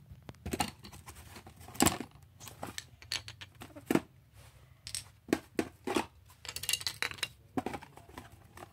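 Model-plane packaging being opened and handled: irregular crinkling and rustling with sharp clicks and snaps, the loudest about two seconds in and near four seconds.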